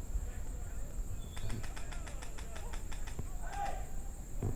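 A quick string of faint sharp cracks, about seven a second for about two seconds starting a second and a half in: an airsoft rifle firing full-auto. A steady high-pitched whine runs underneath.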